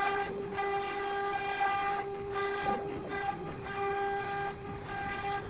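CNC router spindle running at speed with a steady high whine while cutting PVC sheet, with a short rush of cutting noise every second or so.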